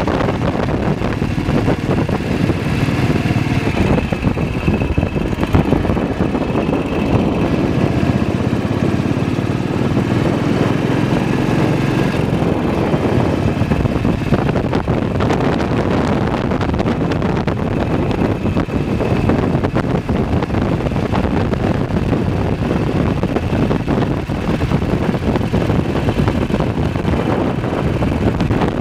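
BSA WM20's single-cylinder side-valve engine running steadily at cruising speed, heard from on the bike, with wind rushing over the microphone.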